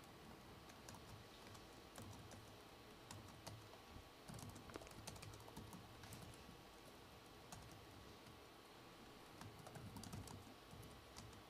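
Faint typing on a computer keyboard: scattered keystroke clicks in short, irregular runs with pauses between them.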